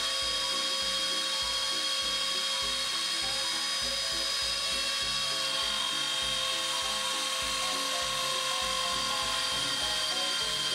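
Dremel rotary tool working as a mini CNC's spindle, whining steadily at high speed as its end mill cuts into a wood block. Underneath, the stepper motors give short tones that keep changing pitch as the machine traces a circle.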